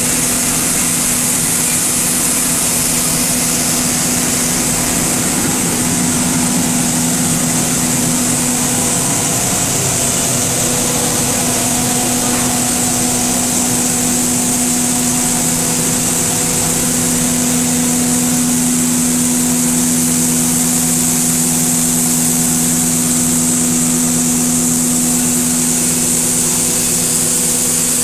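PE/PP film granulation line running: the machinery's motors give a steady mechanical hum with several held tones under a constant high hiss.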